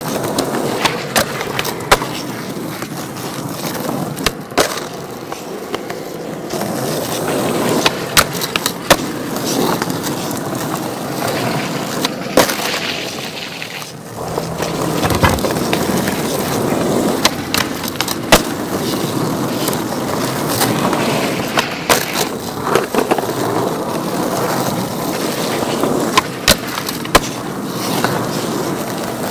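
Skateboard wheels rolling on smooth pavement, broken about a dozen times by sharp clacks of the tail popping and the board landing during flatground tricks.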